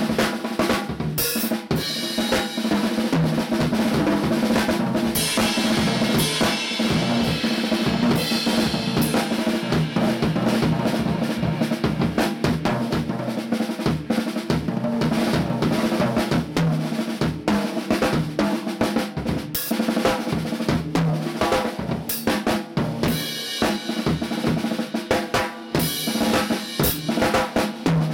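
Drum kit played with sticks, featuring a Mapex 'Sledge Hammer' snare drum: a busy, continuous run of snare strokes with bass drum and cymbals. The cymbals ring out more strongly a few times.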